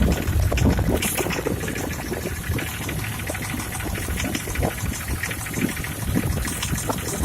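Jeep Grand Cherokee ZJ's AMC 242 4.0-litre inline-six idling just after start-up, with a rapid knocking running over the engine sound: the post-start knock the owner is showing.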